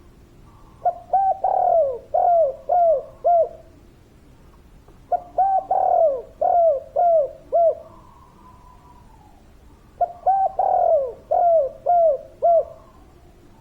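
Spotted dove cooing: three phrases about four seconds apart, each a quick run of about six short coos that fall in pitch.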